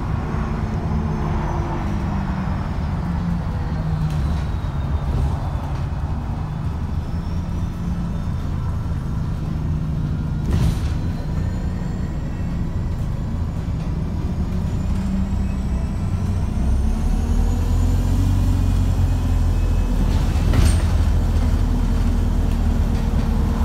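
ADL Enviro350H diesel-electric hybrid bus heard from inside the saloon while under way: a steady low engine drone with road noise that grows louder about two-thirds of the way through, faint high whines gliding up and down, and two sharp knocks about ten seconds apart. This is the engine the uploader calls thrashing and unhealthy.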